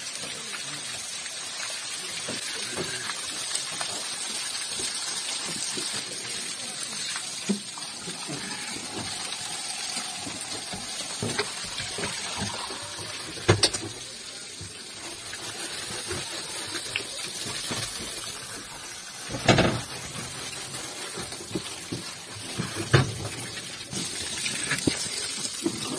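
Water running from a hose and splashing steadily, with a few sharp knocks now and then, the loudest about two-thirds of the way in.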